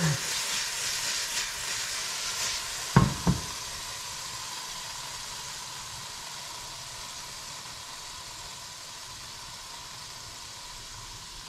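Dove breast frying in a little oil in a pan: a steady sizzle, strongest over the first couple of seconds and then slowly fading. Two quick knocks about three seconds in.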